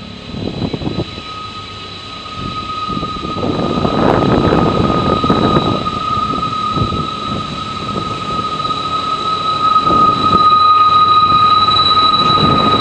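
Steel train wheels squealing on a tight curve as an approaching CSX freight train nears: a steady high-pitched screech that grows louder towards the end. Irregular swells of rushing noise rise and fall over it several times.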